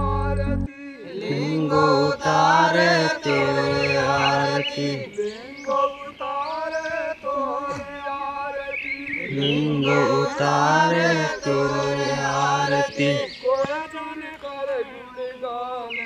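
Men's voices chanting a devotional sumarni prayer song in phrases that rise and fall, starting just under a second in after a bassy music passage cuts off.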